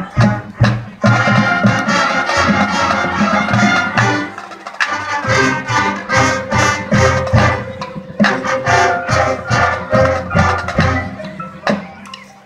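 High school marching band playing a field show: brass over drums and percussion, with sharp accented hits from the whole band. The music falls off near the end.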